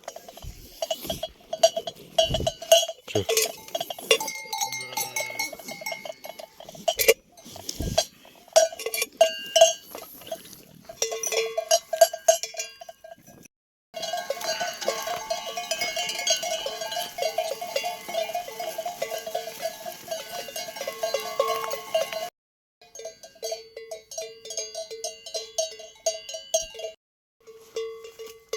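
Livestock neck bells on sheep and goats clanking irregularly as the flock moves, at least two bells of different pitch ringing together; the sound cuts off abruptly a few times.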